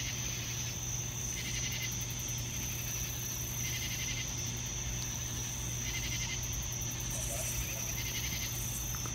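Night insects calling: a steady high-pitched trill, with a rasping chirp that comes back about every two seconds, over a low steady hum.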